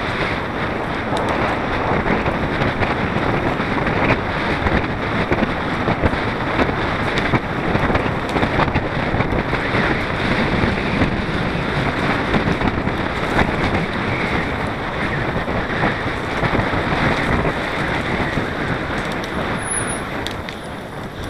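Mountain bike riding fast over a dirt forest trail: wind rushing over the bike-borne camera's microphone and the tyres rolling along, with frequent small knocks and rattles from bumps.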